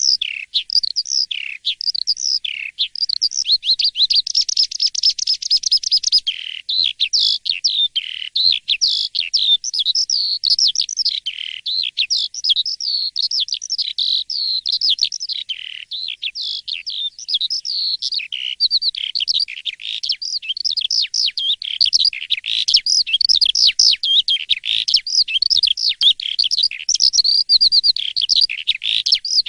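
Asian pied starling (jalak suren) singing a continuous, fast, varied song of quick sweeping whistled notes, loud and nonstop.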